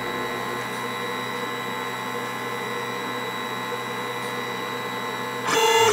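Lulzbot Mini 3D printer running with its head parked at the bed: a steady whir of cooling fans and a whine from its motors. The sound grows louder near the end.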